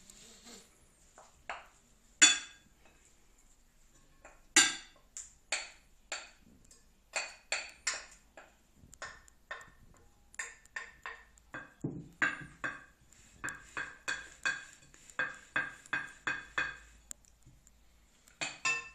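Wooden spoon knocking and scraping against a glass bowl while dishing salad out onto a plate: a run of short ringing clinks, sparse at first, then quickening to about two a second near the end.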